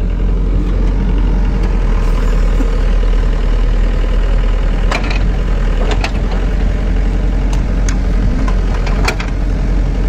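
SANY mini excavator's diesel engine running steadily while the machine digs, with three short, sharp knocks about halfway through and near the end.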